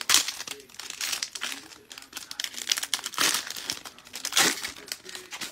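Foil trading-card pack wrapper crinkling in gloved hands as the pack is opened. It comes in uneven rustles, loudest just after the start and about three and four and a half seconds in.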